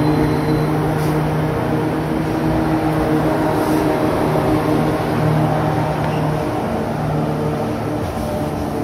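Two 82 class diesel-electric freight locomotives passing close, their EMD two-stroke V12 engines running with a loud, steady drone.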